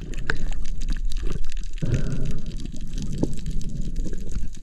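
Underwater sound picked up by an action camera: a muffled rush of water with many sharp clicks and ticks. The low rush grows louder about two seconds in.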